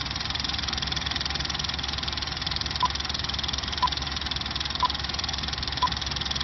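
Film projector running with a fast, steady mechanical clatter. Four short beeps a second apart mark the countdown leader in the second half.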